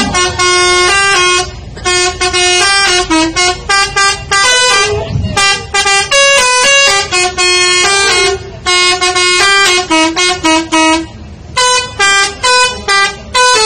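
Multi-tone telolet air horn on a Jetbus 2+ tour bus playing a melody: a run of short and held horn notes stepping up and down in pitch, in phrases broken by brief pauses.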